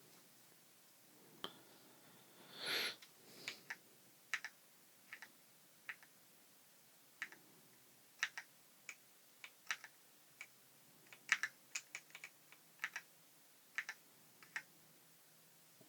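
Keys on an Ajazz AK820 mechanical keyboard with red linear switches being pressed one at a time, in irregular single clicks, never more than a couple a second. There is one longer scrape-like noise about three seconds in.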